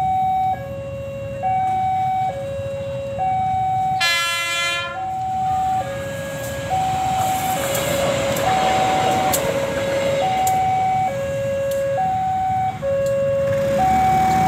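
Railway level-crossing warning alarm sounding two tones in turn, high then low, about once a second each. About four seconds in, a train horn blasts for about a second, and a passing train's rumble swells up around the middle.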